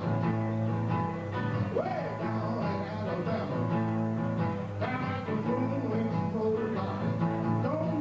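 Electric guitar played live in a blues song, with a man singing.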